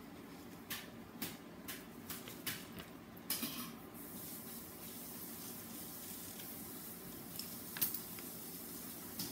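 Quick scratchy strokes of a pen or marker on paper as an area is coloured in, about two strokes a second for the first few seconds ending in a longer scratch, then a single stroke near the end.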